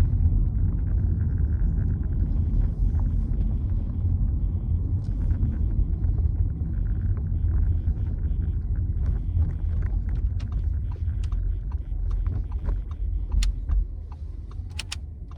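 Low rumble of a car driving slowly, heard from inside the cabin, with a few light clicks near the end as it quietens.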